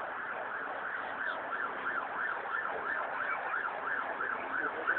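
Emergency-vehicle siren on a fast yelp, a quick rising-and-falling wail about three times a second, over steady street noise. A short sharper sound stands out near the end.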